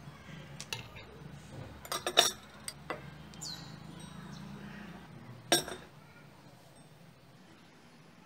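Frozen butterfly pea tea ice cubes and a metal spoon clinking against a drinking glass as the cubes are spooned into the drink. There are several sharp clinks, loudest about two seconds in and again about halfway through, over a low steady hum.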